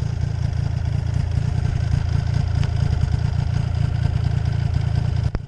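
Snowmobile engine idling steadily, a low continuous rumble, cutting off suddenly near the end.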